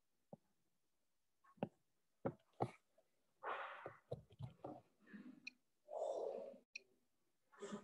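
A person's faint breathing and sighs close to the microphone, with a few soft clicks in the first few seconds.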